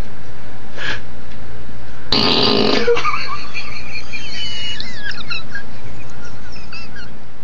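A man belching loudly once, about two seconds in, for under a second. Faint high chirps and falling warbles follow.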